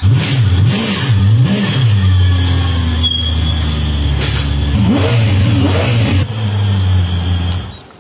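Mercedes-Benz E55 AMG's supercharged V8 running: revved three times in quick succession, then idling, with one more rise and fall about five seconds in. The engine is switched off shortly before the end.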